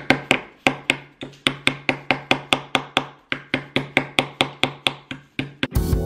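A small hammer tapping on a chisel to chip away at a dinosaur excavation-kit block, a steady run of sharp taps about four a second. Background music starts near the end.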